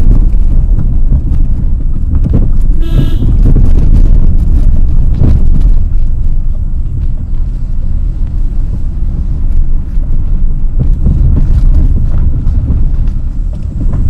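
A car driving along a rough, narrow road, heard from inside the car: a loud, steady low rumble of engine, tyres and wind on the microphone. A brief pitched toot comes about three seconds in.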